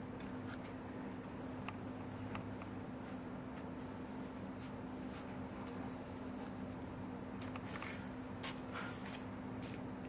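Paintbrush brushing wet paint onto paper in soft, scratchy strokes, with a few sharper taps near the end, over a steady low hum.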